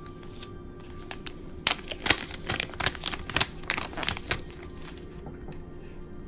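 Smartphone packaging handled as a new phone is lifted out of its box: a quick run of sharp clicks, crackles and plastic crinkling for about four seconds, then stopping. Soft background music plays underneath.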